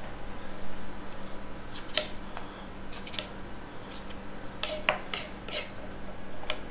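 Boning knife scraping along beef rib bones as the meat is cleaned off them for a French trim: a scatter of short, sharp scrapes, with a quick cluster about five seconds in.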